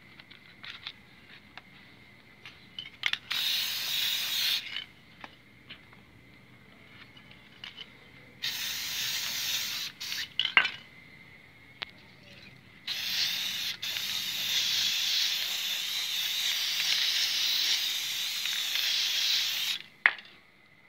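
Aerosol spray paint can hissing in three bursts: a short one a few seconds in, another of similar length just before the middle, and a long one of about seven seconds through the second half. Small clicks and taps come between the bursts, and there is a sharp click near the end.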